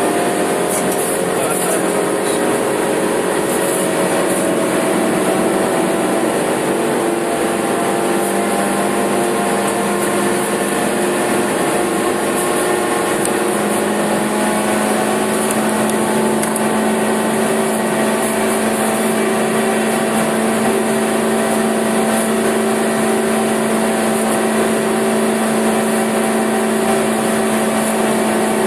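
Suzuki Swift Sport's engine heard from inside the cabin under way at fairly steady revs, its note stepping up in pitch about halfway through.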